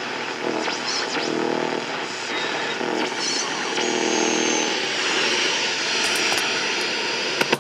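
Tandberg TP-41 transistor radio playing a weakly received AM station through its speaker: a steady hiss of static with faint programme sound showing through now and then. It cuts off suddenly at the end.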